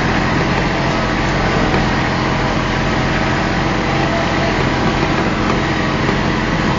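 Small engine of a towing vehicle running steadily under load as it pulls a log along the ground.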